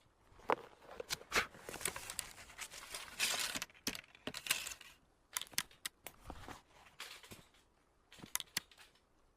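Handling and reloading a muzzle-loading Whitworth rifle between shots: papery tearing and rustling mixed with a run of sharp metallic clicks and scrapes, thinning out after about five seconds, with a last few clicks near the end.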